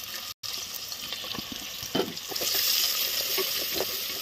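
Chopped onions sizzling in hot oil in an aluminium pressure cooker, stirred with a wooden spatula that scrapes the pan. The sizzle grows louder about halfway through.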